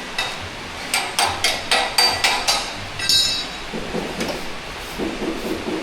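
A hammer striking metal: a quick run of about seven sharp, ringing blows, about four a second, then one more blow a moment later.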